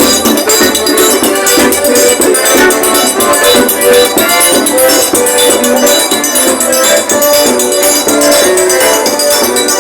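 Loud forró music: held melody notes over a busy, rapid high percussion rhythm, playing without a break.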